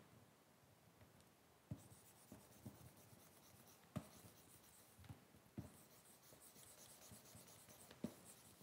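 Faint scratchy strokes of a stylus on a drawing tablet, with a few soft taps of the pen tip at uneven intervals.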